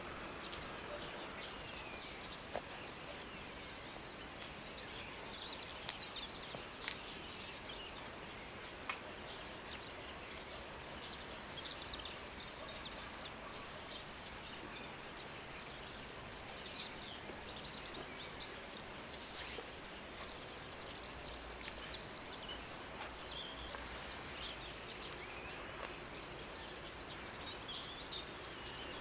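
Small birds chirping in short, scattered calls over a steady outdoor background hiss.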